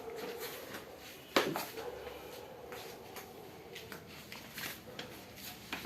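A single sharp knock about a second and a half in, with a few faint small clicks, over a faint steady hum.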